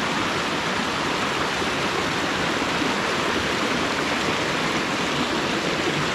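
Steady rushing water, an even continuous wash with no breaks.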